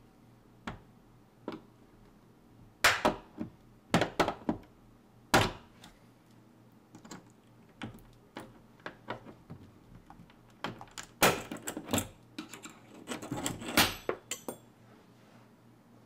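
A screwdriver prying and twisting in a Defiant deadbolt's lock cylinder: irregular sharp metal clicks and clacks in clusters, loudest about three, four and five seconds in and again through the second half.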